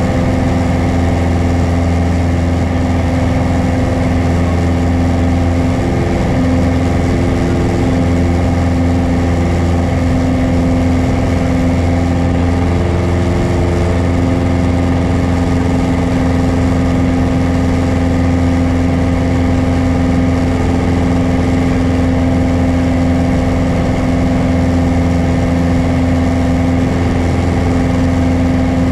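Piper PA-28 Warrior's four-cylinder Lycoming engine and propeller running steadily in the climb after takeoff, heard loud inside the cockpit as a constant low hum with a steady pitch.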